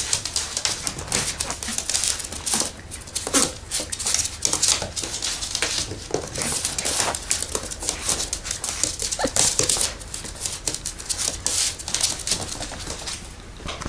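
Sheltie puppy scampering and scrabbling on a wooden floor, its claws clicking and scuffing in quick irregular bursts, with a few short yips or whimpers.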